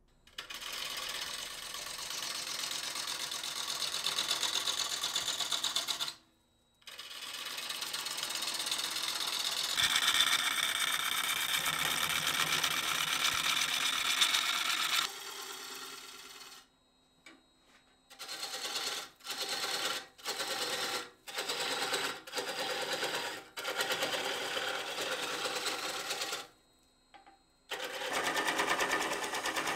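A gouge cutting a spinning ambrosia maple bowl blank on a Laguna wood lathe, a steady shearing hiss with a fast pulse from the turning wood. It comes in stretches broken by short gaps, and in the second half the cuts last about a second each with pauses between.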